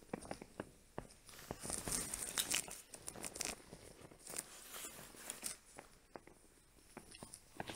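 A small inflatable boat being paddled on still water: irregular paddle splashes and drips with rustling and scraping from the boat, coming in short bunches, busiest between about 1.5 and 3.5 seconds in.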